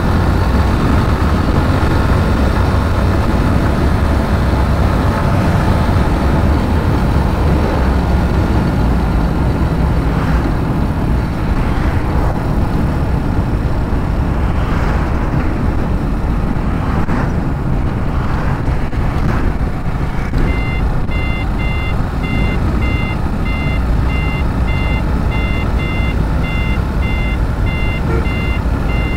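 A motorcycle riding along a highway: wind on the microphone over engine and road noise, with other vehicles passing. About two-thirds of the way through, a steady electronic beeping starts, about two beeps a second, and keeps going.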